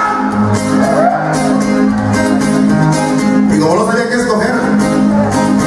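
Acoustic guitar strummed in a steady rhythm, played live, with a voice briefly rising over it twice.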